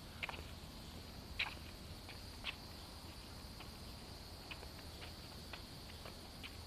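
Faint, steady high-pitched insect chirring, with scattered light taps and clicks; the loudest taps come about a second and a half and two and a half seconds in.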